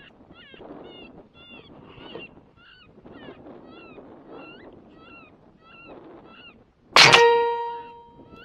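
A single rifle shot about seven seconds in, picked up by the thermal riflescope's built-in microphone: a sudden loud crack that keeps ringing with steady tones for over a second as it dies away. Before it, short high calls repeat two or three times a second over some rustling.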